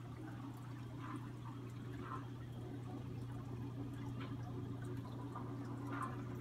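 Aquarium filter running: a steady low hum under trickling water, with small splashes and drips every second or so.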